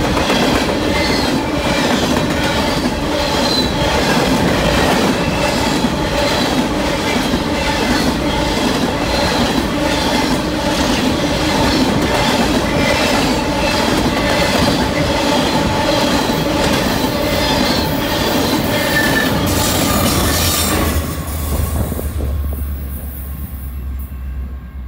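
Freight train of open-top coal cars rolling past close by: a steady clatter of wheels over rail joints with a ringing wheel squeal. About four seconds before the end the last car passes and the sound drops away to a low rumble.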